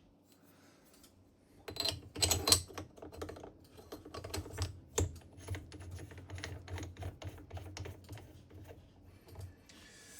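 Metal collets from a Deckel collet set clicking and rattling as they are handled, a quick irregular run of small clicks and knocks that starts about two seconds in, is loudest at first and thins out near the end.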